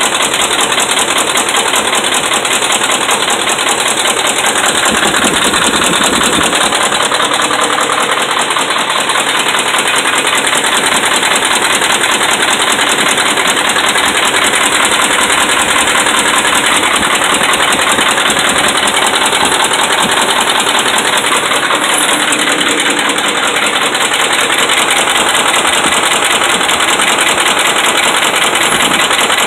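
Dodge Ram 5.7 Hemi V8 idling with a steady, rapid knocking, which the owner puts down to worn connecting-rod and crankshaft bearings.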